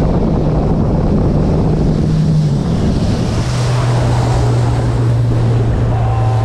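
Boat engine running steadily under wind noise on the microphone and the wash of the sea; its note drops about two and a half seconds in as the engine is throttled back.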